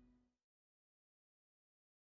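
Digital silence after the tail of a keyboard music intro fades out in the first half second.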